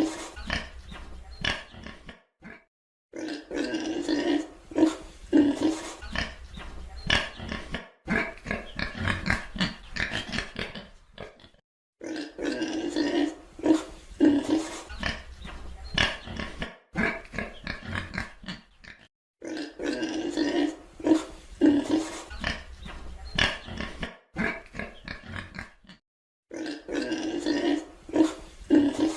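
Pig grunting over and over in stretches of a few seconds, broken by brief silences.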